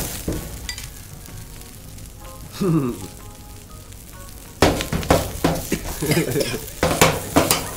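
Greens stir-frying in a hot pan, sizzling, with a metal spatula scraping and clinking against the pan. It is quieter for the first half, then from about halfway on loud sizzling comes in with rapid scraping strokes. Background music plays underneath.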